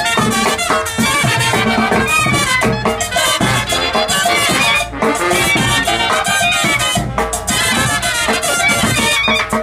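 A live banda brass band playing: clarinets and trumpets carrying the melody over a sousaphone, with no pauses.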